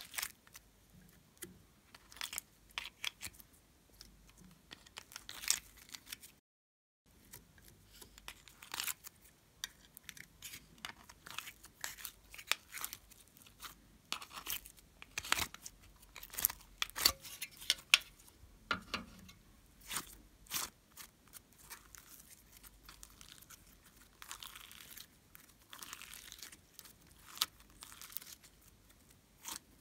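Irregular sharp sticky clicks and crackles of soft clay and slime being scraped out of a plastic palette with fingers and fingernails, then pulled and stretched. A softer patch of crackling comes near the end. The sound cuts out briefly about six seconds in.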